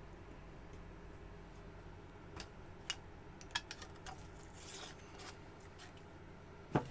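Light clicks and a short scrape of small tools and containers being handled on a workbench while the primer composition is scooped into a silicone cup, with one louder knock near the end.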